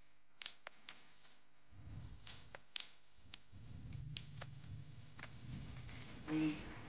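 Close-up eating sounds: spicy instant noodles being slurped and chewed, with scattered sharp clicks of mouth smacks and the fork. A short hummed sound comes near the end.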